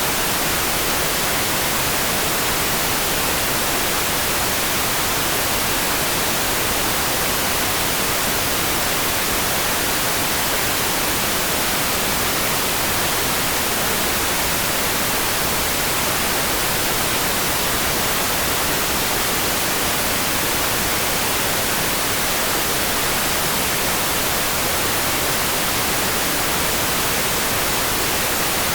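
Steady, even rain hiss, with no single drops, gusts or thunder standing out.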